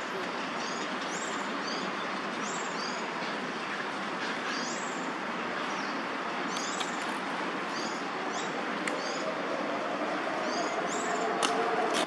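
Steady hum of city traffic, with a small bird giving short, high, falling chirps, often in pairs, every second or so.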